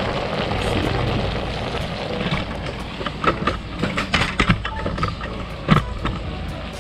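Several sharp clinks and knocks of a cooking utensil against a metal pot of chop suey, over a steady low rumbling hiss; the knocks come in the second half, the loudest near the end.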